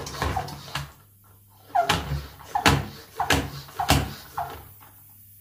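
Hand plunger pump of a Parkside garden pressure sprayer being worked up and down, one short stroke sound about every half second, pressurising the tank. The strokes pause briefly about a second in and stop near the end.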